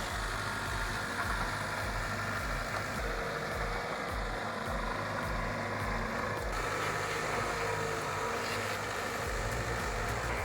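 Heavy vehicle engine running steadily, with a low pulse repeating about one and a half times a second.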